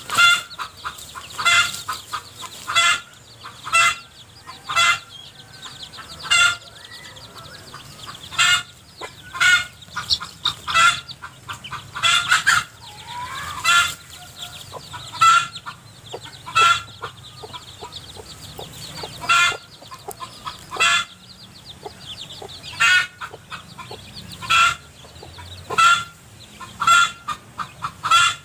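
Mother hen with chicks clucking over and over, short clucks about every second or so, some in quick pairs.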